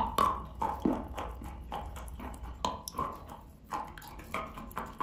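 Wet chalk bitten with a loud crunch at the start, then chewed: a run of irregular wet crunches and clicks from the mouth.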